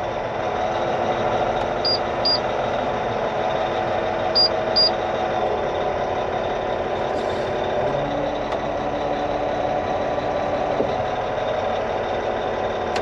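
Caterpillar 740 articulated dump truck's diesel engine running steadily under load as the truck climbs onto a trailer, its note dropping about eight seconds in. Pairs of short high beeps sound about every two and a half seconds during the first five seconds.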